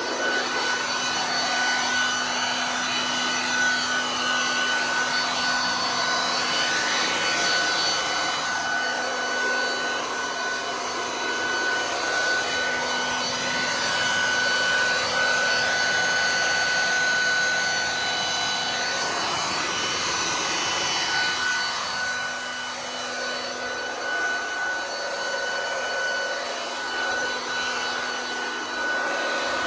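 Ryobi RBV3000CSV 3000 W electric leaf vacuum running continuously: a steady motor whine over rushing air, with a rasping, rustling texture that comes and goes.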